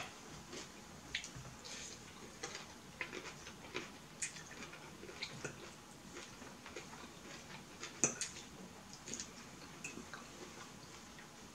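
Fork tapping and scraping on a plate while eating: scattered light clicks, with one sharper click about eight seconds in.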